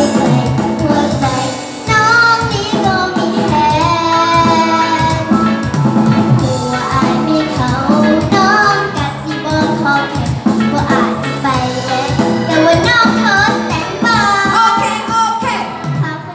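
A young girl singing a Thai luk thung song into a microphone over a backing track, amplified through stage speakers.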